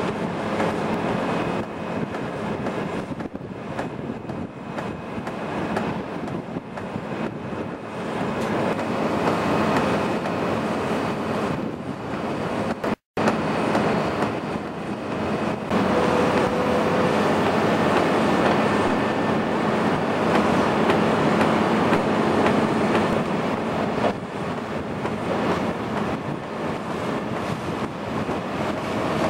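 Piling drill rig running steadily as its auger bores into sandy ground, a dense, constant machine rumble and rattle. The sound breaks off for an instant about 13 seconds in, then carries on slightly louder.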